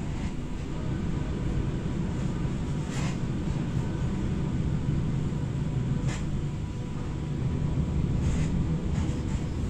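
Passenger train running slowly, heard from inside the carriage: a steady low rumble, with a few short clicks about 3 and 6 seconds in and again near the end.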